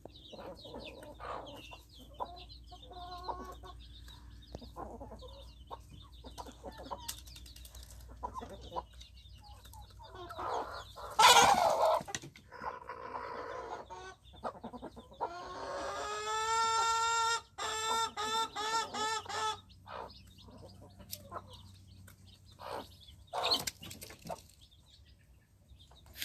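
Hens clucking softly and chicks peeping as the flock feeds. There is a sudden loud noise about eleven seconds in. A long call about sixteen seconds in rises, then breaks into a run of short notes lasting a few seconds.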